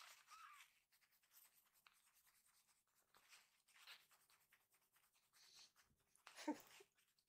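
Faint rubbing of a tissue against a newborn kitten's fur as its bottom is wiped to stimulate it to relieve itself. A brief faint mew comes just after the start, and near the end the kitten gives one short squeak that falls in pitch.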